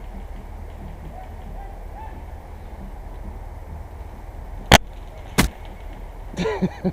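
Two sharp cracks of airsoft gunfire a little under a second apart, the first louder, over a steady low rumble of wind on the microphone; near the end a distant voice calls out.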